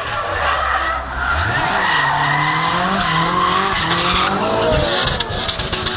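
Drift cars sliding through a corner, engines revving up and down while the tyres squeal and skid.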